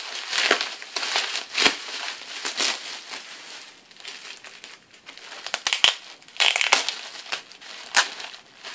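Gift wrapping crinkled and crushed by hand as a present is unwrapped, in irregular rustling bursts with a few sharp clicks.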